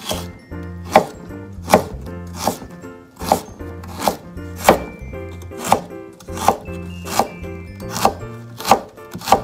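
Kitchen knife cutting fresh ginger slices into thin strips on a cutting board: the blade knocks on the board about a dozen times, roughly once every three-quarters of a second, with background music underneath.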